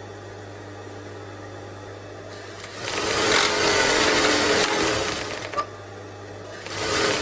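Industrial Singer 191D-30C lockstitch sewing machine with its motor humming steadily. It runs at stitching speed in two stretches, a longer one from about three seconds in and a shorter one near the end, driving the bobbin winder as it fills a bobbin.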